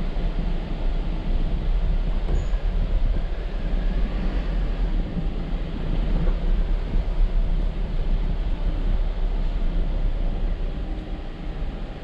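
Jeep Wrangler JL driving on a rough off-road trail: a continuous, uneven low rumble of engine, drivetrain and tyres on rocky ground.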